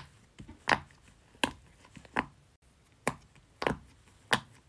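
Silicone pop-it fidget toy's bubbles pressed in one after another with the fingertips, each giving a sharp pop, about one every three-quarters of a second.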